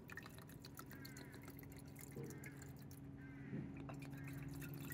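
Vinegar pouring from a plastic bottle into a glass mason jar: a soft trickle with small splashes and drips, over a faint steady low hum.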